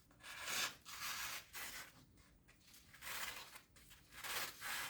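Paper being sliced and torn by a lawnmower blade, sharpened by hand with a stone, in several short rasping strokes about a second apart. It is a sharpness test of the freshly sharpened edge.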